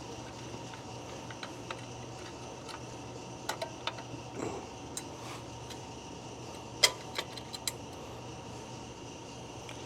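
Small metal clicks and clinks of drum-brake hardware (springs and shoe parts) being handled and fitted, a few scattered ticks with one sharper click a little before two-thirds of the way in, over a steady low hum.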